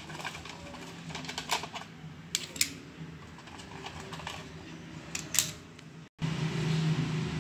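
Hard plastic clicking and snapping as hands pry the lens housing of a black plastic headset apart to free its lenses, with several louder snaps among the small clicks. Near the end the sound cuts out for an instant and a steady low hum comes in.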